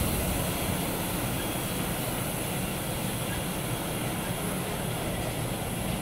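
Freight train of loaded car-carrier wagons rolling past and away, a steady rumble and rattle of wheels on the rails.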